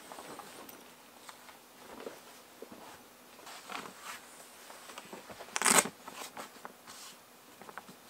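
Scattered rustling, clicks and knocks of camp gear being handled, with one louder, brief clatter a little past halfway.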